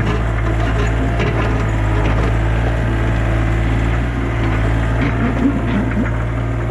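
Compact excavator engine running steadily under load, with irregular cracking and crunching of material as the machine works a ditch.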